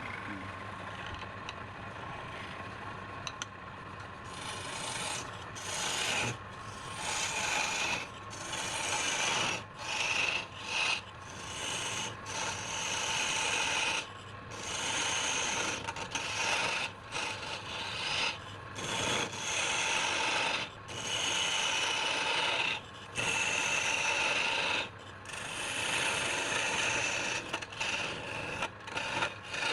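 Wood turning on a lathe with a tool held against the spinning workpiece, rasping in long passes. The tool comes off the wood briefly every second or two.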